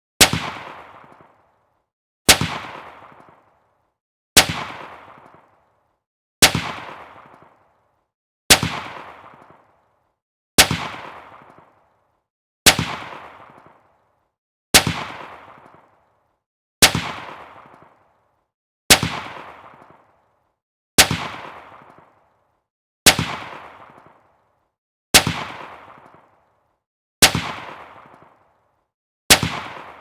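Gunshot with recoil sound effect, the same single shot repeated about every two seconds: each a sharp crack followed by a tail that dies away over about a second and a half.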